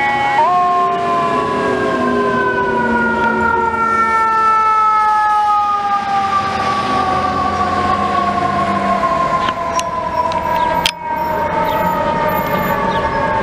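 Federal Q2B mechanical siren on a fire truck winding down: after a brief kick up in pitch near the start, its wail falls slowly and steadily as the rotor coasts down.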